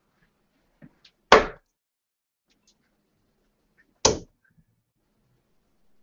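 Two darts thudding into a bristle dartboard, a few seconds apart.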